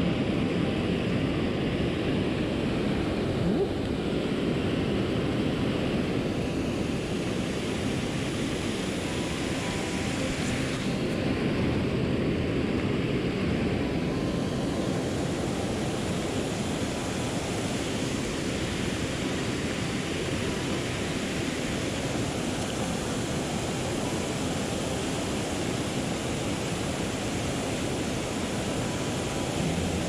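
Water rushing steadily over a small weir waterfall and through the stream.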